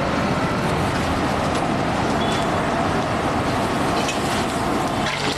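Cumin seeds sizzling in hot groundnut oil on a large flat iron tawa: a steady, dense hiss.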